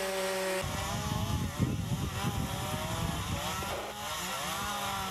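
Gasoline chainsaw engines running and revving at shifting speeds while cutting brush. Under a second in the sound changes abruptly, and a heavy low rumble joins the rising and falling engine whine.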